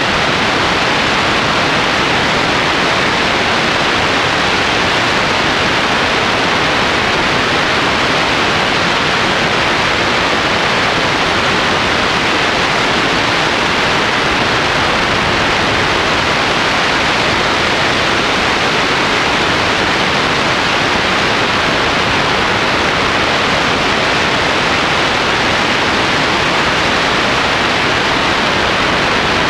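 Steady, loud wind rushing over the microphone of a camera mounted on a tandem hang glider in flight.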